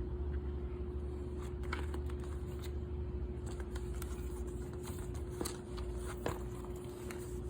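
Light rustling and scattered soft clicks of a paper safety pamphlet and shade-guide chart being handled, over a steady background hum.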